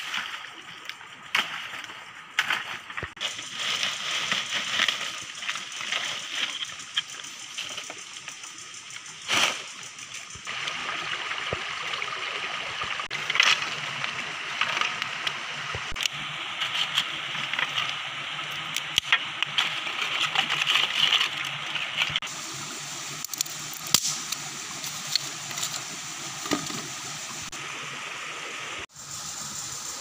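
Steady rush of a shallow stream, with scattered sharp snaps and knocks of dry sticks being broken and stacked on rock.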